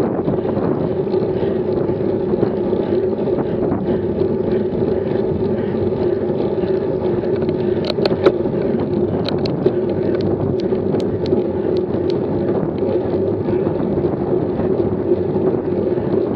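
Steady rush of wind and road noise on a camera mounted on a road bike riding at about 18 mph, with a low hum throughout. A few sharp clicks come about eight to twelve seconds in.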